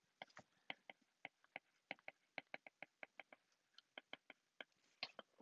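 Stylus tip tapping and clicking on a tablet's glass screen during handwriting: faint, quick irregular ticks, about four a second.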